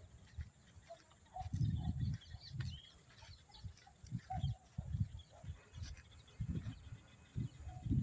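Outdoor field sound: gusts of wind rumbling on the microphone, the strongest about one and a half seconds in, with a few faint bird chirps.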